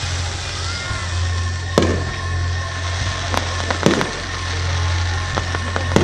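Fireworks display: a handful of sharp bangs from shells bursting overhead, with a quick run of crackling near the end, over a steady low hum.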